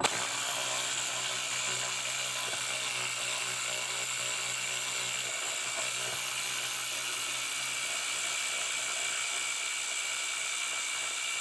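Small cordless power tool running steadily at one speed, backing out the 7 mm screw that holds the C-pillar trim panel; the motor starts and stops abruptly.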